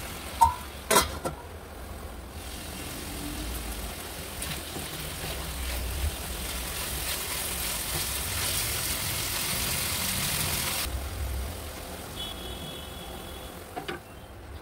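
Chicken pieces sizzling in oil in a nonstick frying pan, with a few sharp knocks of a silicone spatula against the pan about a second in. The sizzle cuts off abruptly about eleven seconds in, leaving a low steady rumble.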